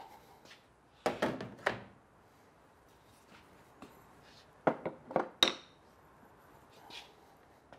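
Parts being set down and handled on a bare motorcycle frame: three knocks about a second in, then a quick run of four sharper knocks, the last a loud, briefly ringing metallic clink.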